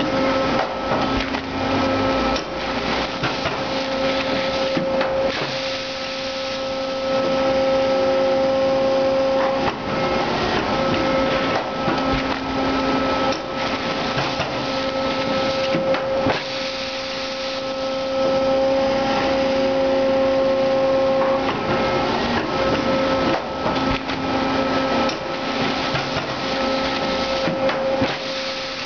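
Rethceif HC-2020 horizontal bagging machine running, its conveyor belts carrying bags of compressed wood shavings: a steady mechanical hum with two held tones, broken by irregular knocks and clatter.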